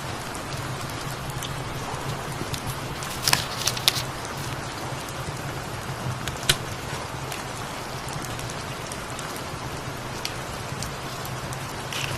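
Steady rain falling, layered over a cat's low, pulsing purr, with a few sharp crackles from a wood fire, a cluster about three seconds in and one more midway.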